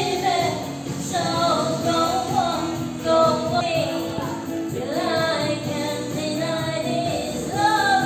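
A woman singing karaoke into a handheld microphone over a pop backing track.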